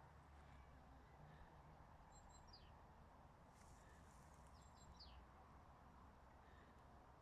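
Faint outdoor quiet with a low rumble, broken twice by a bird's short, high chirps that fall in pitch.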